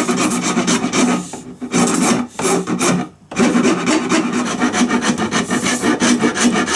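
A hand file worked in quick back-and-forth strokes along the edge of a maple bass-guitar headstock, shaping the wood, with short breaks about one and a half and three seconds in.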